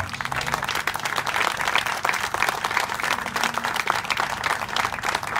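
An audience applauding: a steady round of many hands clapping at once.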